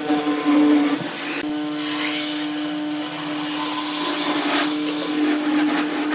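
An electric power tool's motor running with a steady hum, while noisier bursts of cutting or sanding swell and ease over it.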